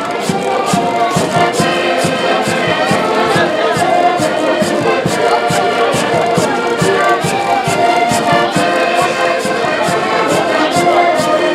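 Portuguese folk band playing a lively tune: several accordions carrying the melody over a steady bass drum beat.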